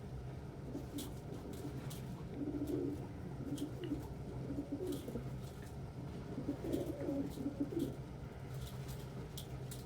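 Domestic pigeons cooing, in low warbling phrases about two and a half seconds in and again around seven seconds, with scattered light clicks and a steady low hum underneath.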